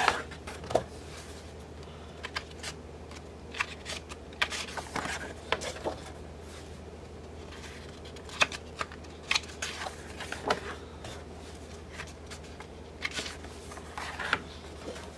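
Pages of a 12-by-12 cardstock paper pad being turned one after another, the thick sheets making short papery swishes and flicks at uneven intervals, about one a second.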